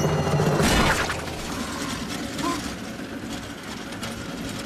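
Cartoon sound effects: a sudden loud crash about a second in, followed by quieter rattling and clicking.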